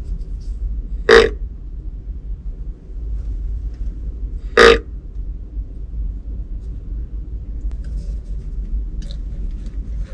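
Whitetail deer grunt call blown twice, two short grunts about three and a half seconds apart, used to draw a buck.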